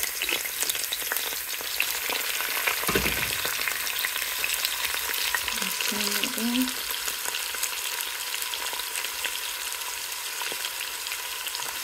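Chopped spring onions, onion and red pepper sizzling in hot palm oil in a pot as they are stirred: a steady crackling hiss. A dull knock about three seconds in.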